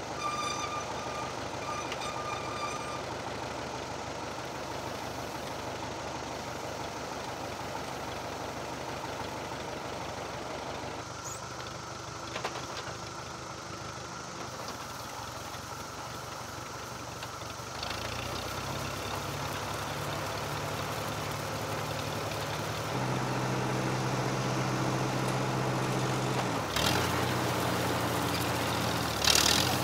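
1959 Allis-Chalmers D17 tractor engine running steadily at low speed. The engine note steps up and gets louder about two-thirds of the way through, as the hay tedder is put to work. Near the end come two short, loud noises.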